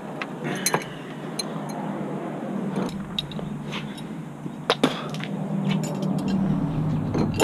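Hand tools clinking and tapping against metal hose fittings: scattered sharp clinks, two in quick succession about midway, over a steady low hum.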